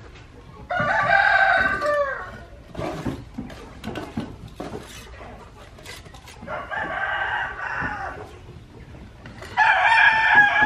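Rooster crowing three times, each crow a long call that drops in pitch at its end, with scattered light clicks and knocks between the crows.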